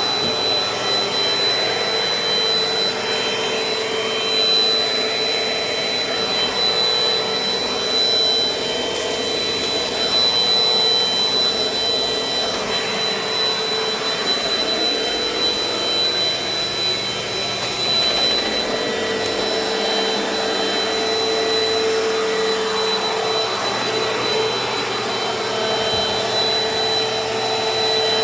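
Dirt Devil Dynamite vacuum cleaner running steadily, a motor hum with a high thin whine over it.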